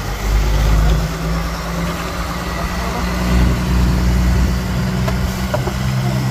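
Fishing boat's engine running steadily with a low drone, and water washing along the hull.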